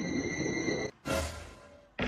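Edited-in music or sound effect: a steady high tone over a low rumble cuts off just before a second in, followed by a short noisy swish that fades away.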